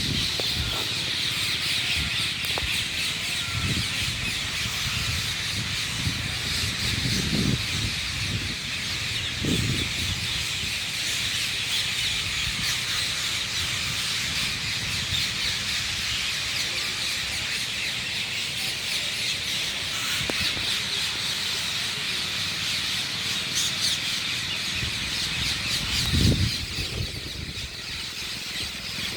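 A flock of parrots chirping and squawking continuously in a dense, overlapping chatter. A few short low rumbles come through, the strongest near the end.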